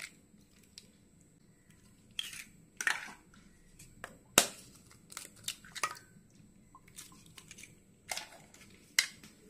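Eggs cracked one after another with a wooden spatula and dropped into a stainless-steel mixer jar: a handful of short, sharp cracks and taps, the loudest a little before halfway.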